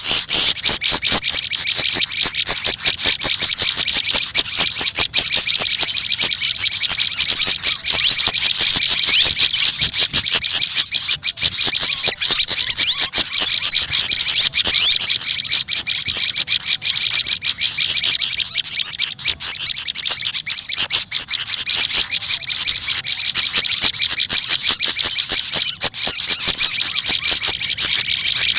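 Small songbirds, the sikatan kipas and prenjak lumut, chattering and chirping without a break: a dense run of rapid, high notes.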